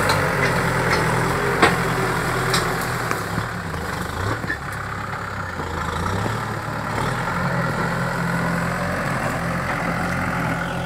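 Kubota M6040 SU tractor's four-cylinder diesel engine running as the tractor drives. Its note wavers and weakens in the middle, then steadies again. Two short sharp knocks come within the first three seconds.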